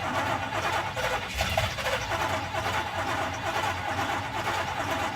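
1983 Chevrolet C10's 305 V8 being cranked over by the starter without catching, a steady rhythmic churning.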